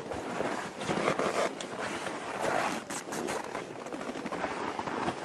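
Wind buffeting the microphone, mixed with the rustle of a down suit brushing against it, with a few short crackles about three seconds in.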